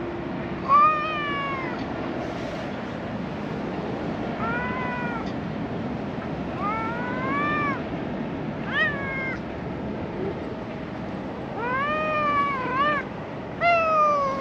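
Cat meowing repeatedly: about six drawn-out meows that rise and fall in pitch, spaced a second or more apart, over a steady background hiss.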